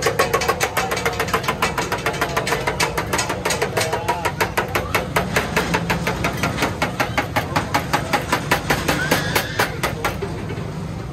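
Rapid, even knocking, several strokes a second, over a low steady hum; the knocking stops about ten seconds in.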